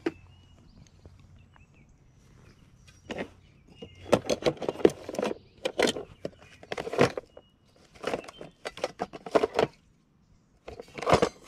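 Hands rummaging in an open plastic tackle box: a run of light clicks and rattles as tackle is shifted about in the trays, starting about three seconds in, with another short burst near the end.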